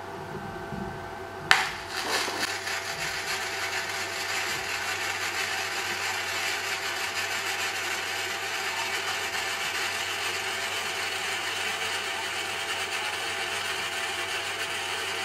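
Gasless flux-cored wire welding arc from an iBell IGBT inverter MAG welder: a sharp crack as the arc strikes about a second and a half in, then a steady crackling sizzle as the wire burns into the steel plate.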